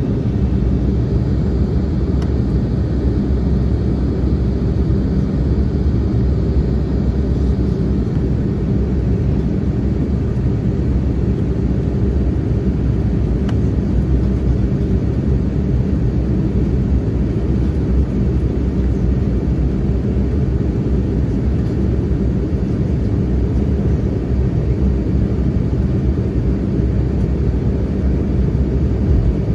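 Steady cabin noise inside an Embraer E190 jet airliner descending on approach: a low rumble of airflow and the General Electric CF34 turbofan engines. A faint high whine sits over it for the first several seconds.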